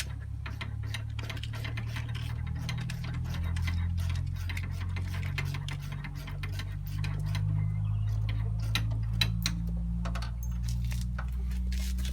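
Scattered light clicks and ticks of small metal hardware (washers, lock washers and nuts) being handled, over a steady low hum.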